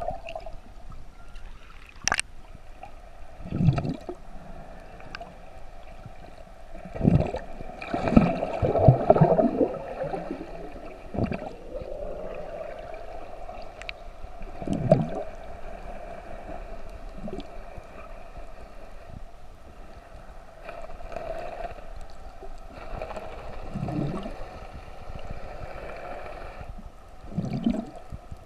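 Underwater sound picked up by a snorkeler's camera: muffled water movement with irregular gurgling, bubbly surges every few seconds over a steady hum.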